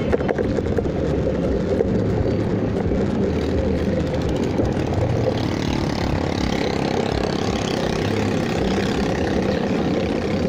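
Wind buffeting the microphone during a bicycle ride, a steady low rush with road noise.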